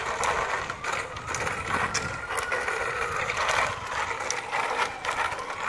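Children's bicycles rolling along a concrete street: a steady rolling hiss with scattered small clicks and rattles, and a faint thin squeal that slowly rises in pitch.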